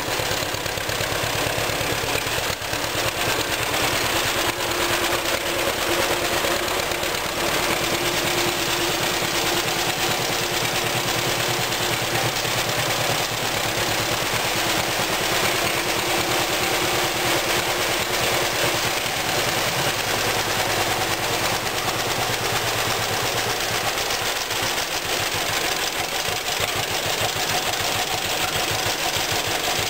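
1941 John Deere B's two-cylinder gasoline engine running steadily, its firing pulses coming as a fast, regular beat.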